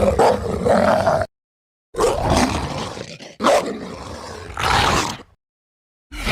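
Monster roar sound effects: a string of separate rough, growling roars, each a second or two long, cut apart by moments of dead silence.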